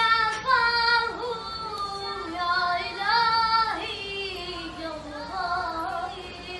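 A young girl singing a wordless, drawn-out phrase in long held notes that waver and slide between pitches.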